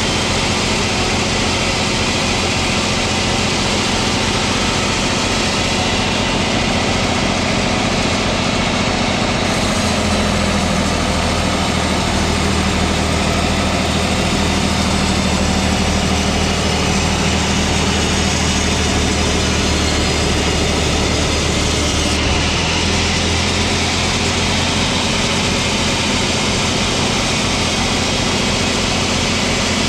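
Sawmill machinery running steadily with a continuous engine-like hum. The low part of the hum shifts about ten seconds in and again around twenty-two seconds.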